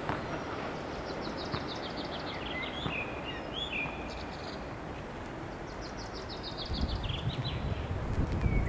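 A songbird singing repeated fast, falling trills ending in chirps, twice, over a steady low outdoor rumble left as an elevated U-Bahn train moves away. A low rumble builds near the end.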